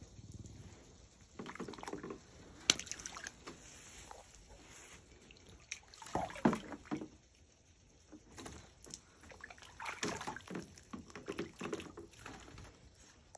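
Water sloshing and splashing in a plastic kiddie pool as a bobcat wades and paws after floating rubber toys, in uneven spurts with quiet gaps. A single sharp knock about three seconds in is the loudest sound.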